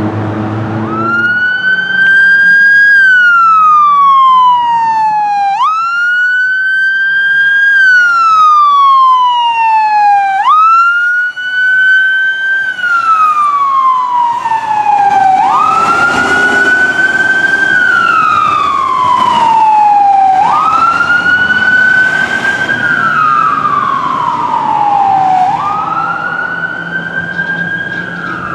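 Fire truck siren on a slow wail: each cycle rises quickly, then falls slowly, repeating about every five seconds. It starts about a second in.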